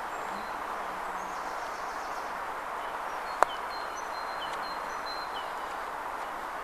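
A croquet mallet strikes a ball once, a single sharp knock about three and a half seconds in. Behind it is a steady outdoor hush with birds chirping.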